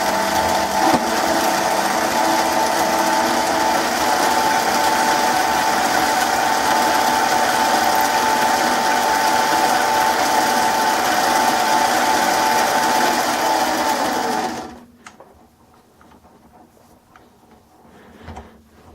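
MicroLux 7x16 mini lathe running with a steady whine, switched off about fourteen seconds in and spinning down quickly, followed by a few faint clicks.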